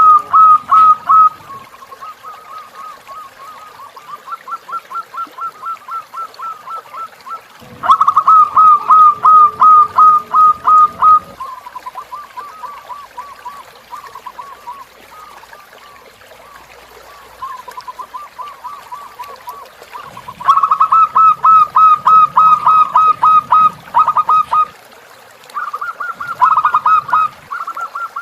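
Zebra doves (perkutut) singing: trains of quick staccato cooing notes, several a second, each run lasting a few seconds and overlapping one another. Loud close runs come at the start, about eight seconds in and from about twenty seconds in, with softer runs between.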